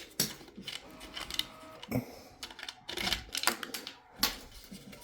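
3D-printed plastic support material being snapped and pried off a print: irregular sharp plastic clicks and cracks, some in quick clusters.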